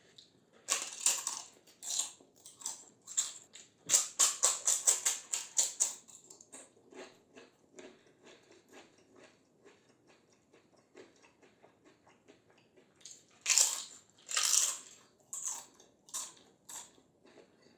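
Crisp fried papad being bitten and crunched close to the microphone. There are sharp cracking bites a second or two in and a quick run of crunches around four to six seconds, then softer chewing. Two more loud bites come near the end, followed by chewing.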